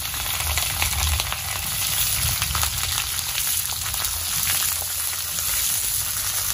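Potato pieces frying in hot oil in a metal kadai, a steady loud sizzle with fine crackling, as a metal spatula stirs them.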